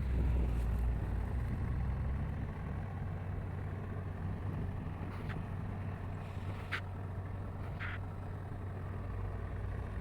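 Heavy diesel machinery engine running steadily at a low, even pitch, with three short, higher-pitched sounds about halfway through and later.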